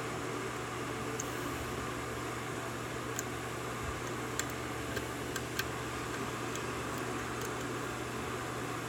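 Scattered faint metallic ticks of a lock pick working the pins of a Yale 5-pin pin-tumbler lock under light tension, over a steady hum and hiss.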